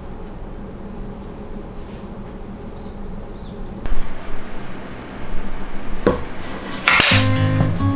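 A steady buzzing hum with a thin high whine cuts off about four seconds in. Several loud knocks and clatters follow, and guitar music begins near the end.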